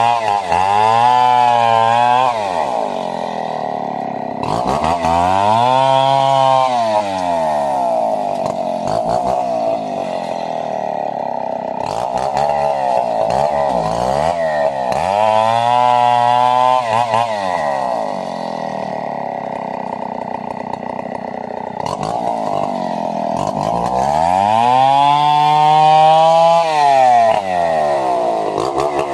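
Two-stroke chainsaw cutting wood: the engine keeps running and revs up four times, each time rising in pitch and then dropping back.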